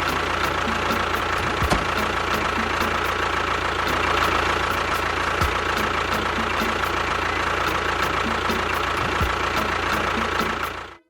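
A small engine or motor running steadily with a thin high whine over it, cutting off suddenly near the end.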